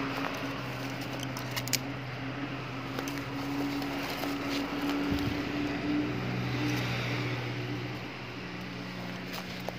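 Steady low engine hum of road traffic, holding a couple of even tones that shift slightly about six and eight seconds in. A few sharp clicks and crackles of dry weed stems being pushed aside come about one and a half seconds in and again near the end.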